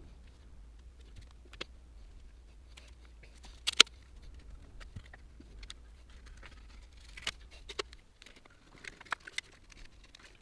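Light hand work on a basement window: scattered sharp clicks and taps, the loudest a quick pair a little under four seconds in. A low background hum stops about eight seconds in.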